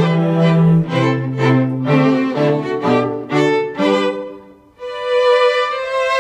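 Background music: a melody of held notes over a lower moving line, the notes changing about every half second, with a short break about three quarters of the way through.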